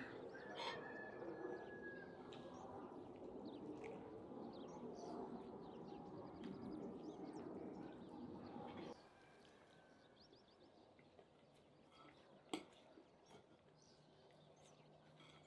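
Faint small birds chirping over quiet chewing sounds of a man eating grilled kebab. The background drops suddenly quieter about nine seconds in, and a single sharp click comes a few seconds later.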